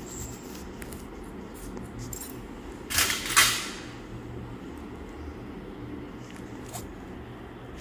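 Steel surgical instruments clink together in one short metallic rattle with two quick peaks, about three seconds in, over a steady low hum.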